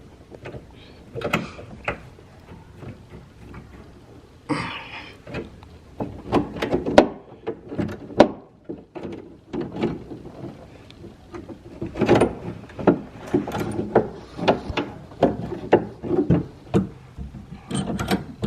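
Irregular clicks, knocks and short scrapes of hand work on a car door's window glass and plastic window slider, with a C-clamp being handled. The sounds are busiest in the second half.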